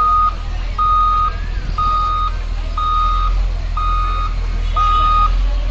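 Caterpillar wheel loader's reversing alarm beeping about once a second over its diesel engine running: the sign that the machine is in reverse.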